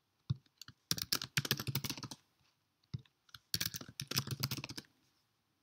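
Typing on a computer keyboard: two quick runs of keystrokes, the second starting about three and a half seconds in, with a few single key clicks between.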